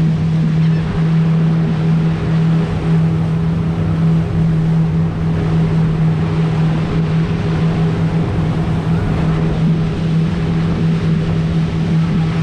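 A tour boat's engine running with a steady, unchanging hum, over a constant rush of wind and water.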